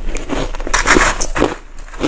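Crushed ice being chewed: a quick run of crisp crunches and cracks, loudest about a second in.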